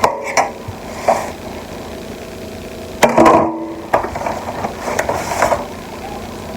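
Kitchen handling sounds as a rack of raw ribs is flipped over on the counter: a string of knocks and rustles, with the loudest clatter about three seconds in, over a faint steady hum.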